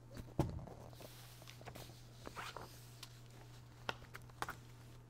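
Faint rustling with a few sharp clicks, the loudest about half a second in, over a steady low hum.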